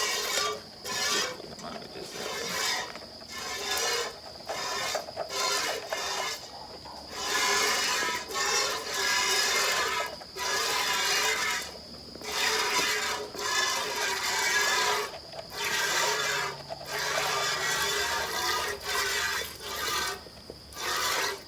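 A goat being milked by hand: streams of milk squirt into a pail in quick hissing spurts, about one or two a second, with short pauses between runs.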